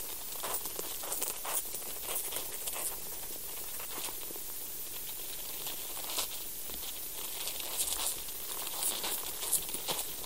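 Sounds of life in the soil picked up by a sensor buried in the ground: irregular scratching, crackling and rustling over a steady hiss.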